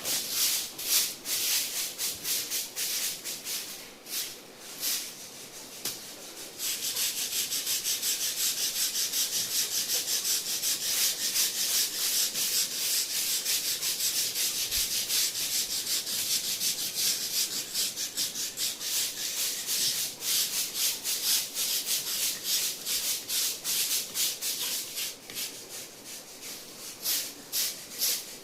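Stiff bristles rubbing rapidly and repeatedly over a hard surface, a run of scratchy brushing strokes. The strokes ease off briefly about four seconds in, then go on more strongly.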